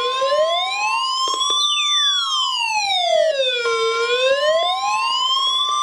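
Weather alert radio sounding a severe thunderstorm warning: the steady 1050 Hz NOAA Weather Radio alert tone with a siren-style alarm wailing slowly up and down over it, about one rise and fall every four seconds.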